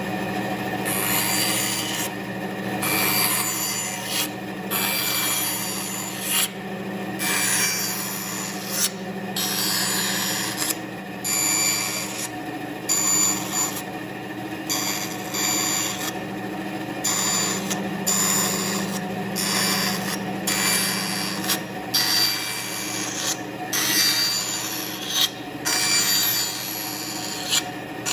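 Bandsaw running with a steady motor hum while its blade cuts into wood in a series of short relief cuts; the cutting noise starts and stops every second or two as each cut is made and the blade is backed out.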